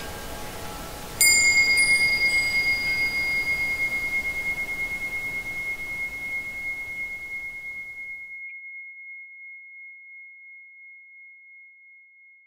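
A single high-pitched chime struck about a second in, ringing out and slowly fading with a wavering loudness. Before it, fainter chime tones die away.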